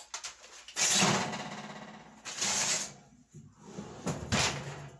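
Gas range oven door opened, a foil-covered baking pan slid onto the rack and the door shut: three separate clattering, scraping noises, the first trailing off over about a second.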